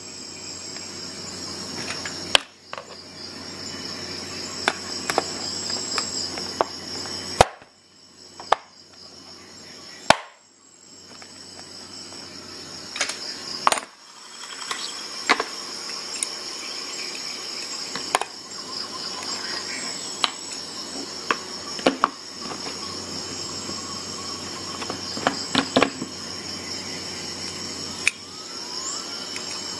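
Metal guide rods of a Lansky sharpening kit being handled in their plastic case: scattered sharp clicks and clacks as rods knock against each other and snap into the case's slots, over a steady high-pitched trill.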